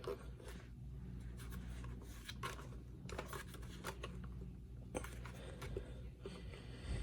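Faint clicks, scrapes and rubbing of plastic parts being worked by hand as a stubborn piece of a Kirby G4 vacuum is twisted loose, over a steady low hum.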